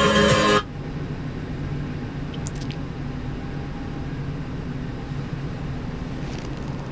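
FM radio music from the car stereo's speakers cuts off suddenly about half a second in as the unit's button is pressed, leaving the steady low hum of the car's engine idling.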